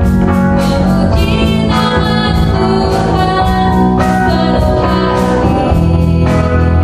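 Live worship band playing a song: a woman singing lead into a microphone over electric guitars, bass and keyboard.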